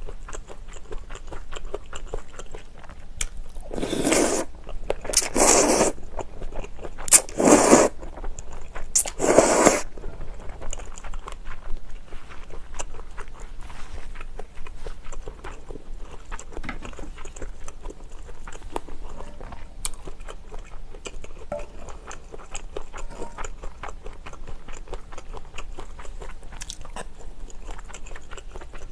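Close-miked eating sounds: wet chewing with small mouth clicks and smacks as cream pasta is eaten. Four loud, noisy bursts of about half a second each come in a cluster between about 4 and 10 seconds in.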